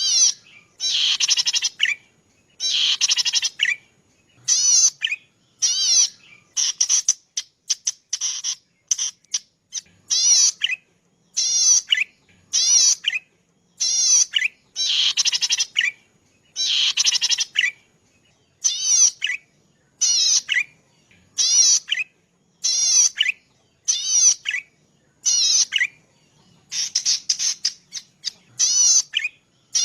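Cici padi singing: a rapid, buzzy, wavering phrase of high notes repeated over and over, each phrase lasting about half a second to a second and a half, with short pauses between them.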